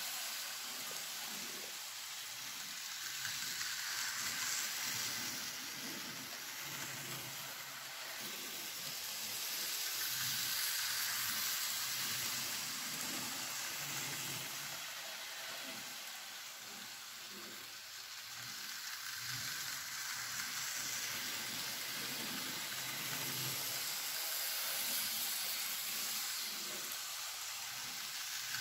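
N scale model trains running: a steady hiss and whir of small locomotive motors and wheels on track, swelling louder every few seconds as a train passes close.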